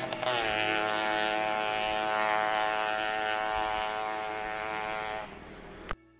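Motorcycle engine running as the bike rides along. Its pitch drops as it eases off early on, then holds steady before dying down near the end. A sharp click then cuts the sound off.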